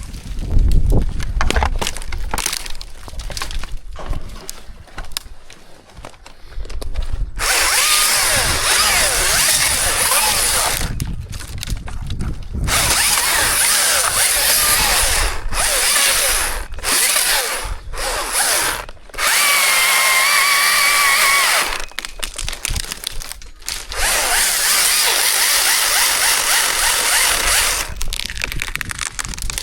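Chainsaw cutting wood in a series of loud bursts with short pauses between cuts, starting about seven seconds in, with a brief steady whine in the middle.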